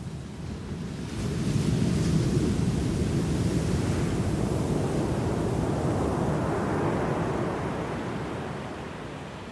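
Ocean waves: a wave breaks about a second in and its wash slowly dies away near the end.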